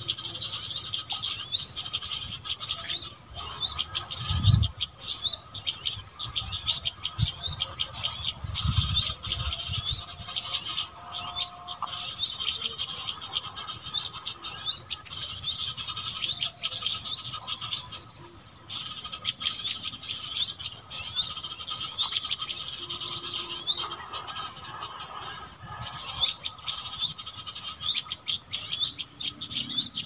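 Dense, continuous chatter of many small songbirds calling over one another, from a noisy-bird lure recording played to attract small birds to glue-stick traps. There are two brief low thumps, about four and nine seconds in.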